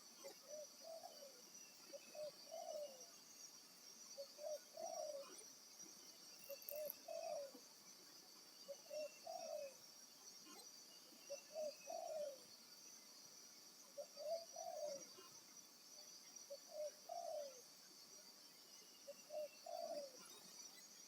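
Spotted dove (tekukur) cooing: a short, low, multi-note coo phrase repeated about every two seconds, nine times, with a steady high hiss underneath.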